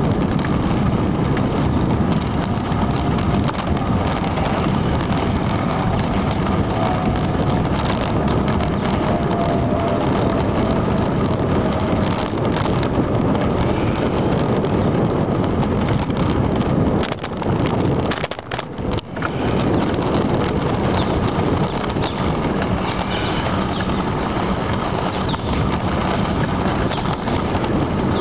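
Steady wind rushing over the microphone of a camera on a moving bicycle, mixed with road noise; it briefly dies down about two-thirds of the way through, then comes back.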